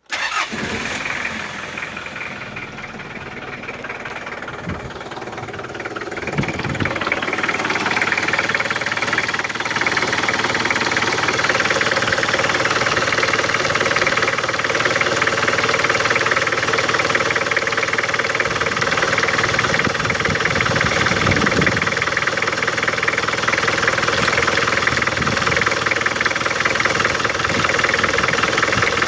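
Mitsubishi 4D56 2.5-litre four-cylinder diesel engine running steadily. It grows louder from about six to eight seconds in, then holds an even level.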